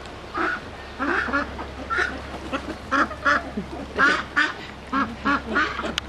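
Domestic ducks quacking over and over in short calls, often two or three in quick succession.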